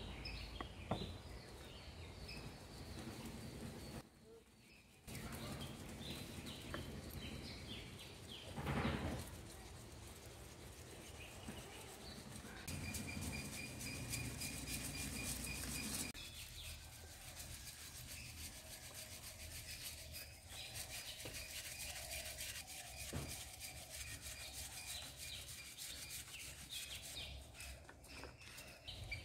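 Flour being sifted through a metal sieve onto a banana leaf, a soft rubbing and shaking, with birds chirping in the background.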